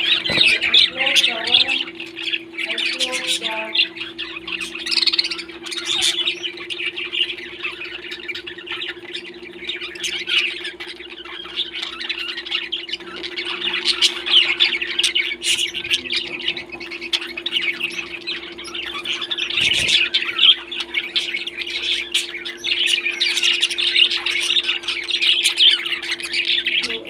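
Parrots squawking and chattering continuously, many harsh calls overlapping, over a steady low hum.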